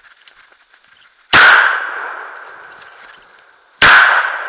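Two gunshots from a hunting gun, about two and a half seconds apart. Each is very loud and trails off in a long echo through the pine forest.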